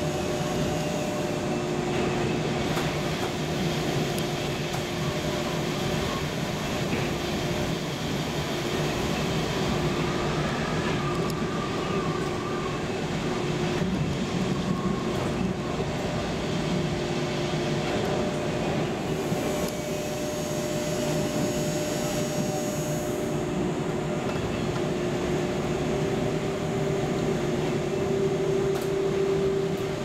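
Düsseldorf Airport SkyTrain suspended monorail running along its elevated guideway, heard from inside the car: a steady rumble with a drive whine held at one pitch, the whine growing a little louder near the end.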